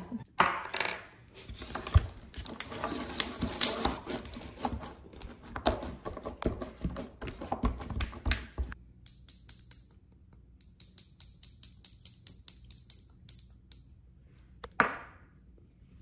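Clear slime studded with small stress-ball beads and glitter being mixed and squished by hand. First comes dense wet crackling, then, after a sudden drop about halfway through, sparse small clicks and pops, with a brief squelch near the end.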